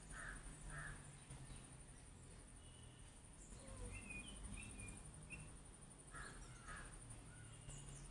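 Faint outdoor birds: a crow cawing several times in quick succession, stopping about a second in and calling again briefly near the end, with a few small-bird chirps in between over a steady high-pitched insect whine.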